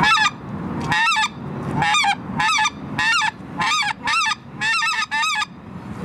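Goose call blown in a run of about ten short honks, some in quick pairs, each note breaking sharply in pitch: the yodel of long-distance goose calling.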